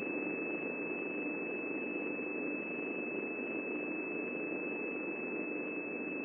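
A steady high-pitched whine, holding one pitch throughout, over a continuous hiss.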